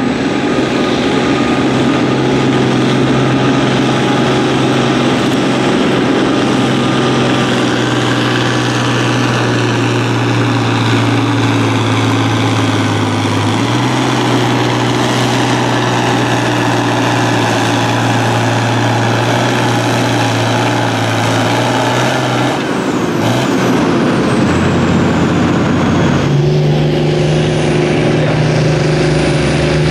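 Stock diesel farm tractor engine running hard under steady load while pulling a weight-transfer sled, its note rising slightly about halfway. After a short break, a second tractor's engine runs at a steady, higher note for the last few seconds.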